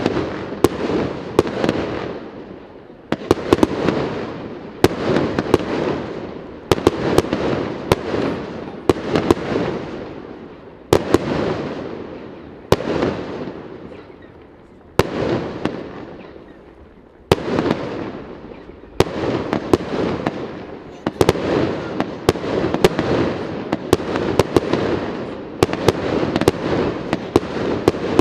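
Aerial firework shells bursting, a sharp bang every second or two, each followed by a rolling echo that dies away. There is a pause of about three seconds around the middle, then the bangs come quicker toward the end.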